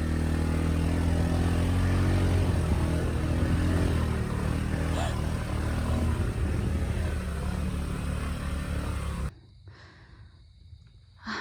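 Car engine running steadily, just restarted after its battery had died. It cuts off abruptly about nine seconds in.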